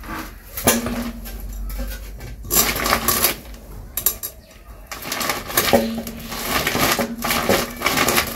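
A pangas fish being cut on the curved blade of a floor-standing boti knife: repeated scraping and crunching strokes with metallic clinks, in two spells.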